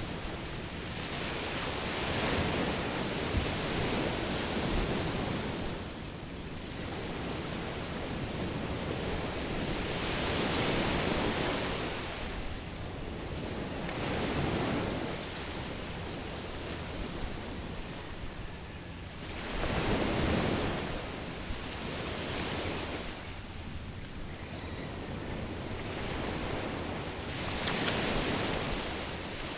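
Small surf waves breaking and washing up the sand, swelling and fading every few seconds, with a brief sharp swish near the end.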